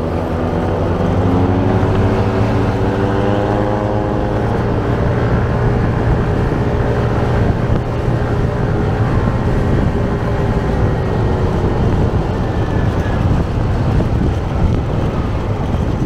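Motor scooter engine running while riding, its pitch rising over the first few seconds as it speeds up, then holding steady. Wind rushes over the microphone throughout.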